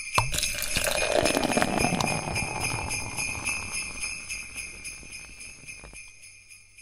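Sleigh bells shaken in a steady rhythm, fading out over several seconds.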